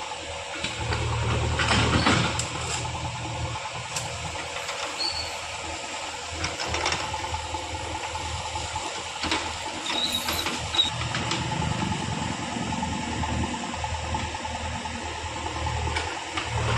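JCB 3DX backhoe loader's diesel engine working under load, swelling and easing as the machine digs and loads earth, with scattered metallic clanks and knocks. The loudest surge comes about two seconds in.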